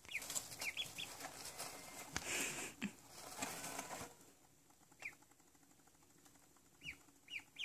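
Two-day-old ducklings peeping: short, high, falling peeps, a few at a time. During the first four seconds there is rustling in the wood-shavings bedding; after that only an occasional peep is heard.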